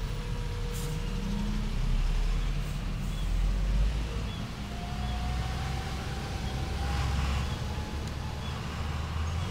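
Low rumble of street traffic, with a vehicle passing whose engine note rises slowly in pitch through the second half. Faint short high chirps repeat through it, under a second apart.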